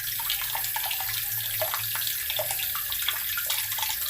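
Water running steadily from a tap and splashing below, an even rushing hiss with irregular small splashes.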